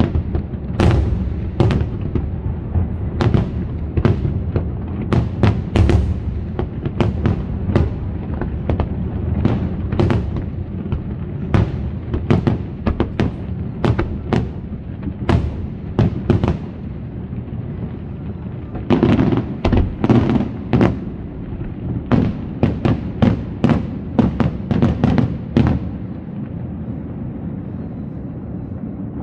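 Fireworks display: aerial shells bursting in a steady string of sharp bangs over a low rolling rumble. After a short lull there is a rapid volley of bangs, and then the rumble dies away.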